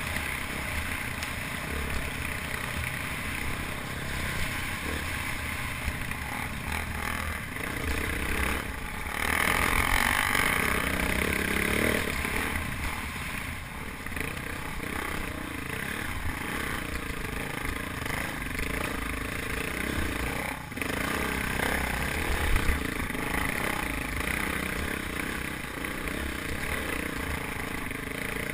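Single-cylinder dual-sport motorcycle engine running under load as the bike climbs a rocky dirt trail, heard through a helmet camera. It swells louder for a few seconds about nine seconds in.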